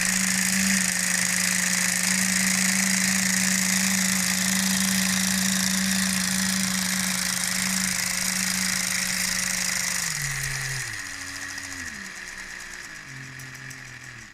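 Lego 12V train motor running at a steady speed with a hum and a high gear whine. From about ten seconds in it slows down in several steps, falling in pitch and getting quieter, and it stops right at the end.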